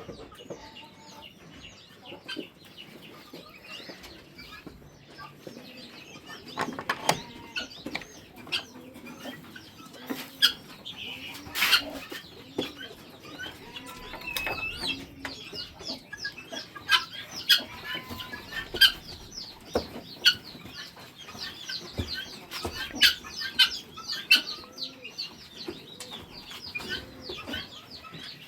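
A flock of chickens calling together: many overlapping clucks and short high chirping notes, with louder sharp calls or knocks standing out now and then.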